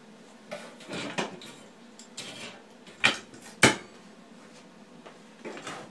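Metal clanks and scrapes as a welded metal test plate and tools are handled on a workbench, with two sharp clanks about three and three and a half seconds in as the loudest.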